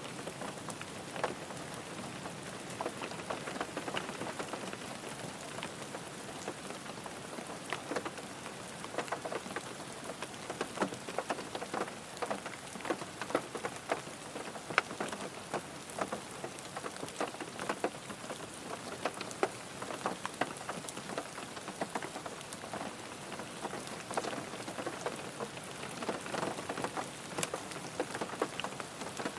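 Steady rain falling on a car, a constant hiss dotted with many separate drop taps.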